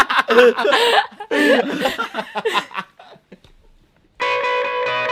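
Several people laughing loudly and shrieking together for about three seconds, then dying down. About four seconds in, a music track with electric guitar starts.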